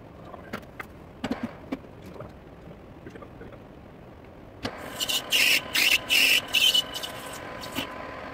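Metal lathe: scattered clicks and knocks of work at the machine, then about two thirds in the lathe starts and runs with a steady whine, with several short, loud, harsh bursts over it.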